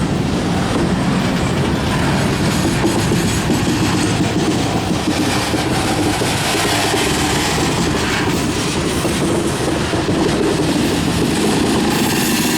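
Freight train cars rolling past, wheels clacking over the rail joints in a steady loud rumble.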